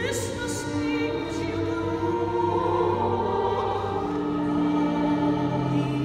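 Soprano and chorus singing sustained notes, backed by a live string orchestra in a church.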